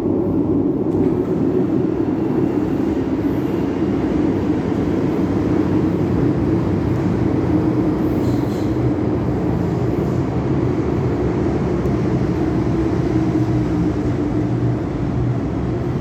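Steady low hum and rumble of an MTR Metro-Cammell M-Train electric multiple unit at a metro platform, even in level throughout.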